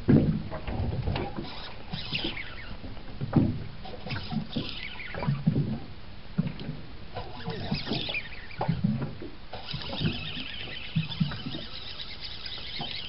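An angler fighting a hooked bass from a boat: irregular thumps and knocks on the boat, with a hiss coming in about ten seconds in.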